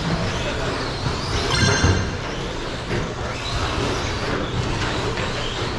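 Several electric 1/12-scale RC short-course trucks racing on a carpet track: their motors whine, rising and falling in pitch as they speed up and slow down, over a steady rush of tyre and drivetrain noise. A louder clatter comes about two seconds in.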